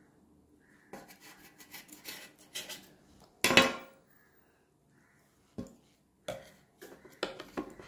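A spatula cutting through a layered crepe-and-chicken pastry and scraping against the plate in a series of short scrapes and knocks, with one loud clatter about three and a half seconds in, then a few sharp knocks and more scraping near the end.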